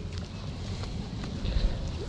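Wind rumbling on the microphone, with a low thump about one and a half seconds in.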